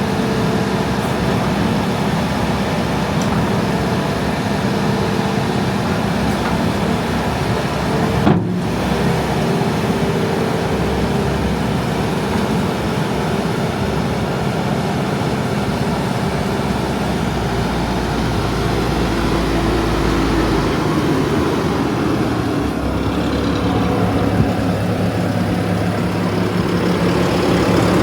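2018 Bobcat T740 skid steer's four-cylinder turbocharged diesel engine running steadily. Its note shifts about two-thirds of the way through and grows louder near the end.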